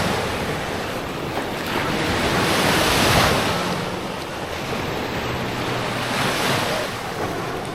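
Small Lake Michigan waves breaking and washing up the sand shore, the wash swelling about three seconds in and again near the end, with wind buffeting the microphone.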